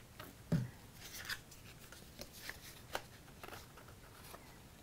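Cardstock rustling and light taps as hands fold and press the glued side tabs of a paper box card together, with a soft thump about half a second in.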